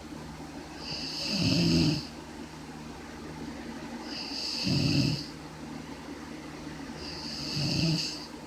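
Snoring: three snores about three seconds apart, each swelling and fading over about a second, with a steady low hum underneath.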